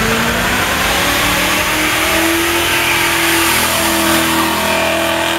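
BMW 5 Series (E39) doing a burnout: its engine revs climb in the first second or so and are then held high and steady, over the hiss of spinning tyres, as the car passes close by.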